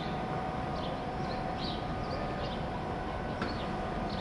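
Gotha T2 tram and its trailer car rolling slowly over street rails: a steady low rumble with a faint steady whine, a single click about three and a half seconds in, and short high chirps of small birds.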